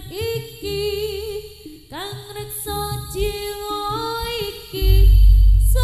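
Solo voice singing a Javanese sung prayer (tembang) in a slow, ornamented line, the pitch wavering and gliding between held notes. Near the end a loud, deep low sound comes in suddenly and holds under the voice.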